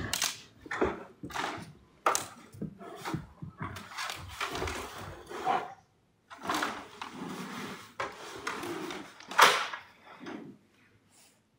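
A giant panda wrestling with a ring toy hung on a tree, making irregular knocks, scrapes and rustles against the wood.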